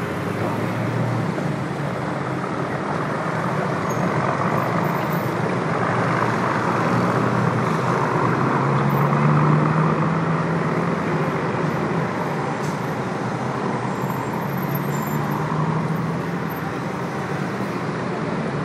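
Dense city traffic on a multi-lane avenue: a continuous wash of engines and tyres. A large vehicle's engine swells louder as it passes close about halfway through.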